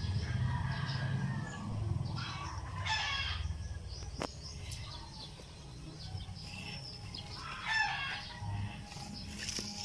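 Chickens calling and a rooster crowing, with two clear calls about three seconds in and near eight seconds, over a steady low rumble.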